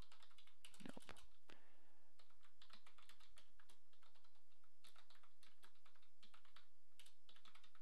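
Typing on a computer keyboard: quick, irregular runs of key clicks broken by short pauses.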